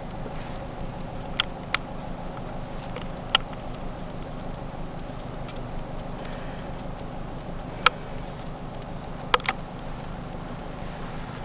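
Steady low hum of an idling car engine, with six sharp mouth clicks scattered through it, the last two in quick succession.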